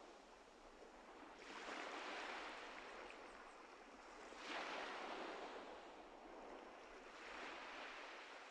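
Small ocean waves breaking on a sandy beach, each one swelling up as a soft rushing wash, three times about three seconds apart.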